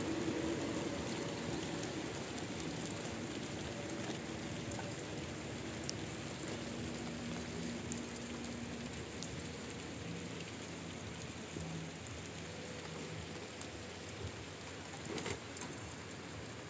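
Steady rain falling, an even patter, with a faint low hum underneath and a light knock near the end.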